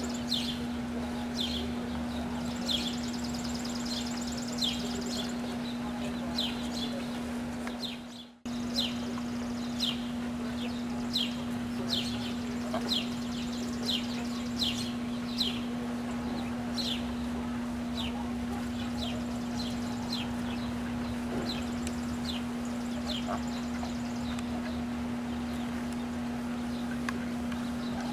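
Mallard ducklings peeping: a run of short, high chirps that fall in pitch, about one or two a second, over a steady low hum. The sound cuts out briefly about eight seconds in.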